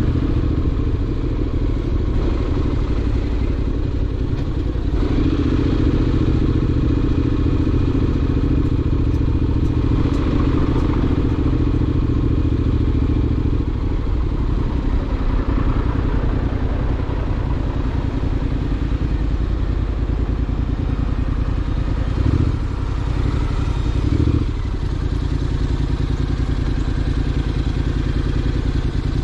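Honda X-ADV's parallel-twin engine running steadily at an even pitch. There are two brief thumps about two-thirds of the way through.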